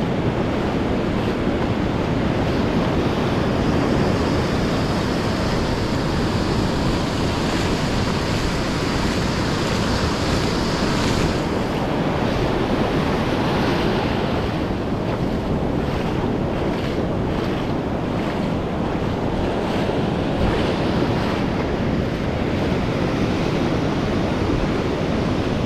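Surf washing onto the beach, heard as a steady rushing noise with wind buffeting the microphone. A brighter hiss from about four seconds in stops suddenly about eleven seconds in.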